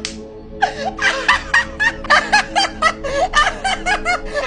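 Laughter in a quick run of short "ha" bursts, several a second, starting after a brief pause about half a second in, over steady background music.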